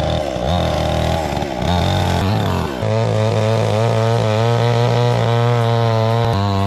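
Cheap eBay chainsaw running with its two-stroke engine buzzing. The revs shift for the first few seconds, then climb about three seconds in and hold high with a slight waver.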